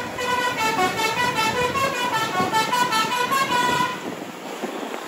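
Multi-tone 'telolet' musical air horn on a Jetbus 5 tour bus, playing a quick tune of rapidly changing notes that stops about four seconds in, with road noise underneath.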